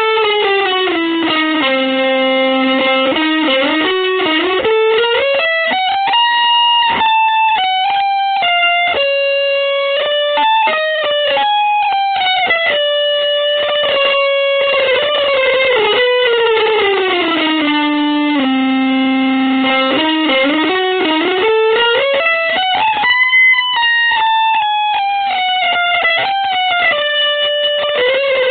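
Solo electric guitar playing a slow single-note line, holding long notes and sliding smoothly up and down in pitch between them.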